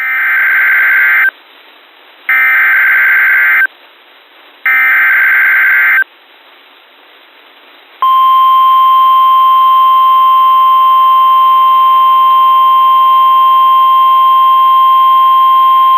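NOAA Weather Radio alert tones: three short bursts of SAME header data noise, about a second apart, then after a short gap the long, steady single-pitch 1050 Hz warning alarm tone, heard through a weather radio's narrow audio. The header and alarm tone mark the start of a new warning, here a severe thunderstorm warning.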